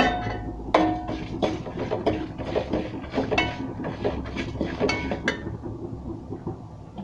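A steel ladle stirs whole spices and red chillies dry-roasting in an aluminium pot, scraping and clinking against the metal in quick, irregular strikes that ring briefly. The clinking stops about five seconds in.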